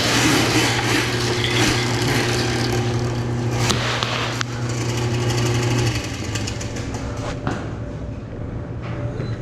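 Drain-cleaning machine running with a steady motor hum and rattle while clearing a floor drain blocked with wipes and paper. The motor stops about six seconds in, leaving quieter rattling and knocks.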